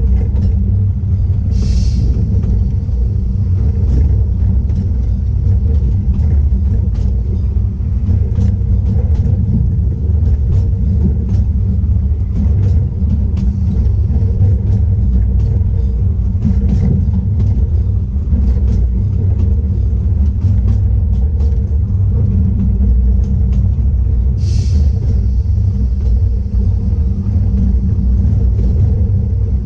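Narrow-gauge train rolling along the track: a steady low rumble of wheels on rail with frequent light clicks. Two short high hisses break through, one about two seconds in and another late on.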